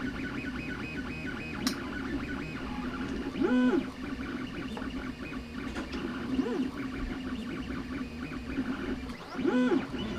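3D printer's stepper motors running through a print: a steady motor hum with stepping tones, its pitch sweeping up and back down as the moves speed up and slow, about three and a half seconds in and again near the end.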